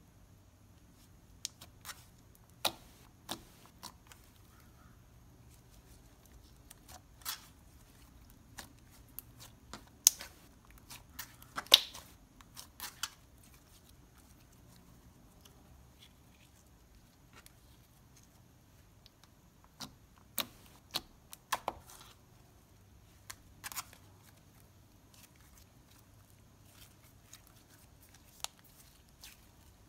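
Thick glossy slime being stretched, folded and squeezed by hand, giving sharp irregular clicks and pops from trapped air pockets. The clicks come in scattered clusters with quiet stretches between.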